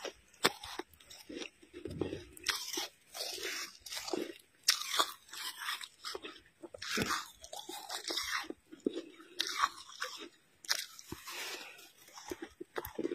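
Fresh snow being bitten and chewed: a run of irregular crunches, one after another.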